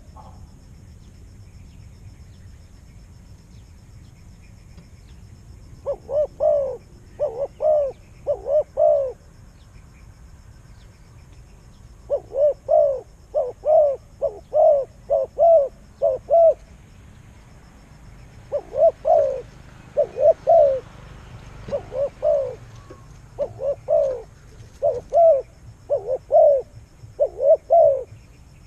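A bird calling in repeated bouts of short notes that rise and fall in pitch. Each bout has several notes in quick succession, and the bouts are separated by pauses of a few seconds.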